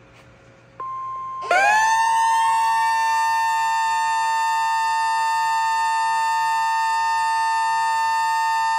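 Weather radio emergency alert tones announcing a tornado warning: a steady single tone near 1 kHz starts about a second in, then about half a second later a louder siren-like chord of several tones sweeps up and holds steady.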